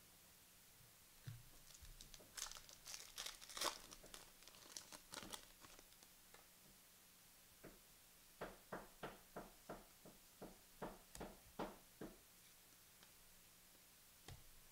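Quiet crinkling and tearing of a trading-card pack wrapper being ripped open, followed a few seconds later by about a dozen short, evenly spaced clicks, roughly three a second, as cards are flicked through one by one.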